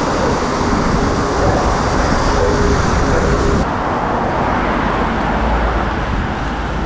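Road traffic on a highway: a steady rush of tyre and engine noise from passing vehicles, with a low rumble.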